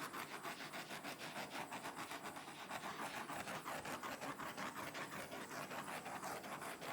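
Steady, rapidly fluttering hiss of a heat tool being passed over a freshly poured black acrylic base to pop its air bubbles.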